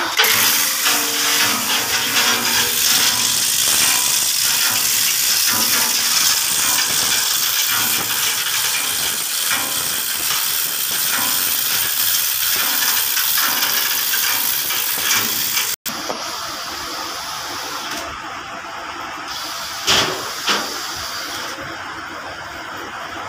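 A loud, steady hissing noise that cuts out abruptly about two-thirds of the way through, followed by a quieter hiss with two short knocks near the end.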